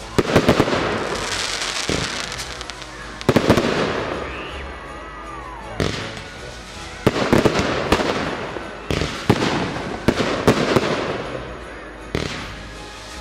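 Fireworks display: groups of sharp bangs from aerial shells bursting every second or two, each followed by a trail of crackling.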